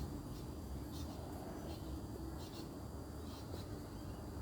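Faint outdoor background: a steady low rumble, with short high bird chirps several times.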